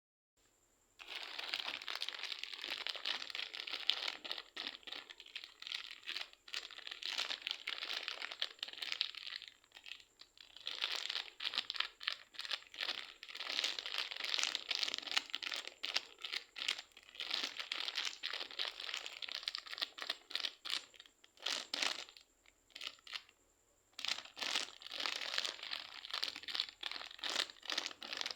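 Crackly, crinkling squish of clay and slime being squeezed and worked, coming in stretches separated by short pauses.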